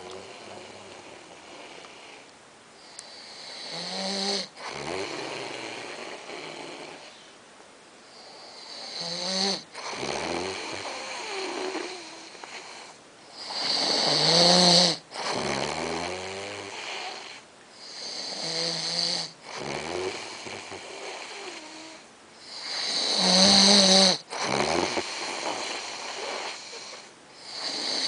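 Heavy snoring, about one long snore every five seconds. Each snore swells to a loud peak, with quieter breathing in between.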